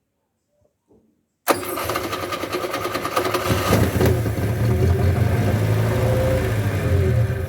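Ford Corcel's Renault-derived 1.4 four-cylinder engine, its carburettor primed with a splash of gasoline, starting on the key about a second and a half in. It catches almost at once and keeps running, rough at first and then steadier.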